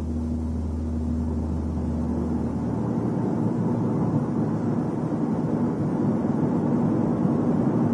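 Car driving noise with a low booming drone during the first few seconds, growing slowly louder overall. This is the boom the training traces to an unbalanced or out-of-round propeller shaft.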